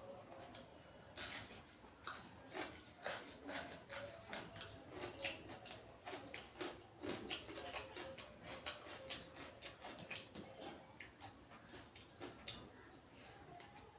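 A person eating close to the microphone: wet chewing and lip smacks, irregular clicks several times a second, with one sharper smack about twelve seconds in.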